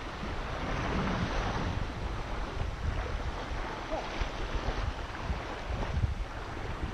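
Steady wind noise on the microphone over small waves lapping in shallow seawater close by.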